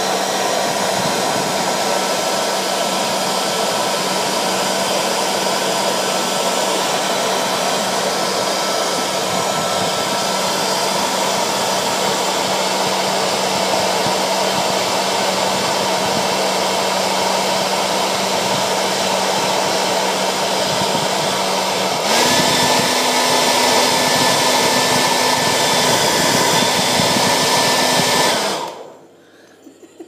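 Handheld hair dryer blowing hot air at close range: a steady rushing hiss with a motor hum. About two-thirds of the way through, the hum jumps to a higher pitch and the dryer gets louder. Near the end it switches off and runs down within about half a second.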